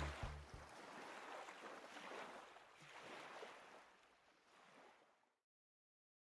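The tail of a music score fading out: low bass notes stop within the first second, leaving a soft rushing wash that dies away to dead silence about five seconds in.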